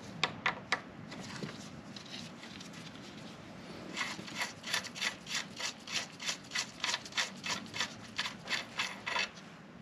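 A ratchet spanner working the front axle fastenings at a motorcycle's fork foot as the front wheel is taken out: a few sharp clicks, then from about four seconds in a steady run of short rasping strokes, about three a second.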